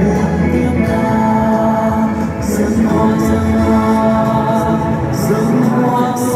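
A Marian devotional hymn sung by voices over musical accompaniment, with long held notes.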